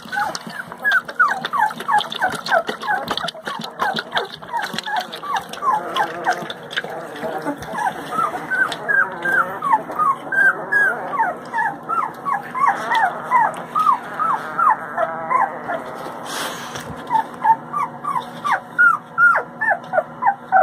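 Newborn Bluetick Coonhound x Running Walker puppies whining and squeaking, a stream of short high cries that fall in pitch, several a second.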